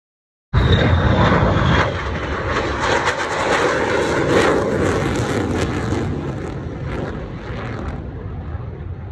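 Jet noise from an F-35A's single Pratt & Whitney F135 turbofan as the fighter passes low overhead. A loud, dense rumble with crackle through it cuts in suddenly about half a second in, with a faint whine falling in pitch at first. The noise slowly fades as the jet moves away.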